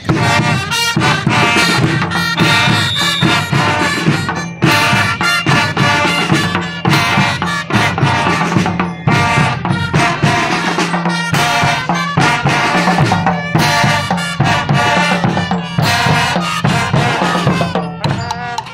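School brass band playing loudly, brass over drums and percussion, in a Latin American style; it starts abruptly and stops just before the end.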